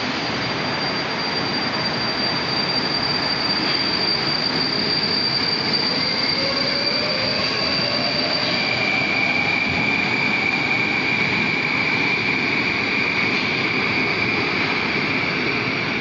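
Moskva-2020 metro train pulling out of the station: wheels and running gear rumble on the rails while the traction drive's whine rises in pitch about six seconds in as it accelerates, then holds steady.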